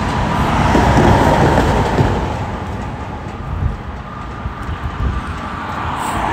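A steady low rumble of background noise, loudest about a second in and easing off somewhat after that.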